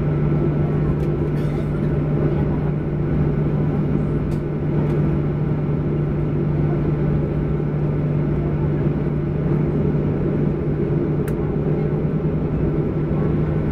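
Steady cabin hum of a Boeing 737-800's CFM56-7B engines running at idle, heard from inside the cabin beside the right engine, with a constant low drone and one faint click near the end.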